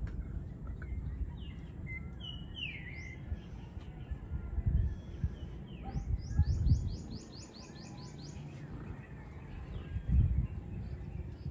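Birds chirping and calling, one giving a quick run of about a dozen high, falling notes midway. Under them a low rumble swells loudly three times.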